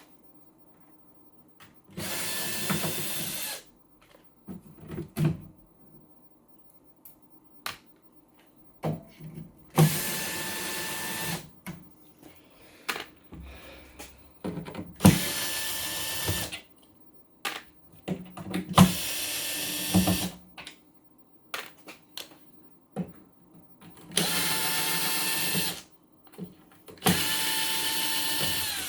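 A small electric drill runs in short bursts of about two seconds, six times, with a steady motor whine. Small clicks and handling knocks sound between the bursts.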